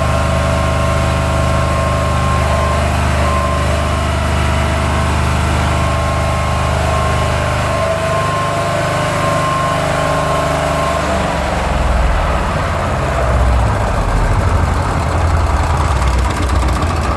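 The engine of a very old 6 kW diesel generator set running at a steady speed, with no welding load on it. For the first two-thirds a steady higher whine rides on top; in the last few seconds the engine is heard close up, lower and more throbbing.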